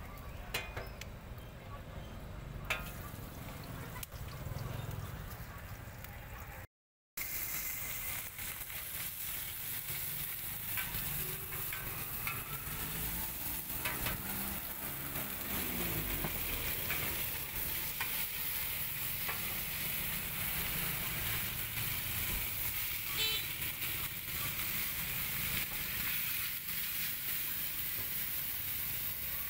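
Oil sizzling in a large flat wok while a metal spatula scrapes and stir-fries cabbage, bean sprouts and greens. The sound cuts out briefly about seven seconds in, and the sizzle is stronger after the break.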